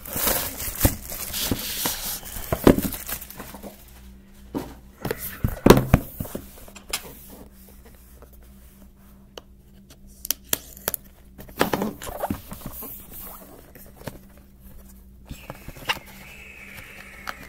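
Plastic shrink wrap crinkling and tearing as it is pulled off a trading card box, followed by scattered taps, scrapes and slides of the cardboard box being handled and opened.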